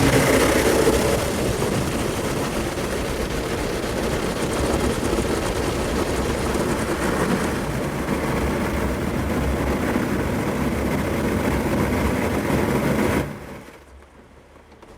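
Automatic car wash running: a loud, steady rush of spray and machinery with a low rumble underneath. It cuts off suddenly about 13 seconds in, leaving only faint background noise.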